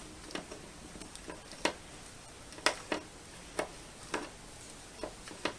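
Hand screwdriver driving a screw to fix a stand leg to a TV, with separate sharp clicks about once a second as it is turned and regripped.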